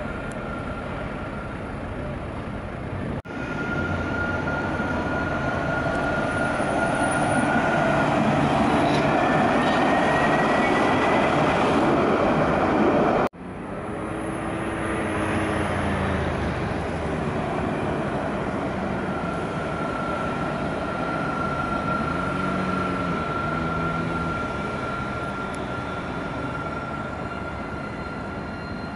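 Lyon T4 electric tram running on its rails: a rumbling wheel-and-track noise under a steady high whine. In the middle the whine rises in pitch and grows louder as the tram speeds up; after a sudden cut, a tram approaches with the steady whine again.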